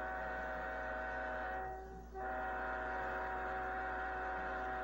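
Train horn sounding a chord of several notes: a long blast, a short break about two seconds in, then a second long blast. A steady low electrical hum lies underneath.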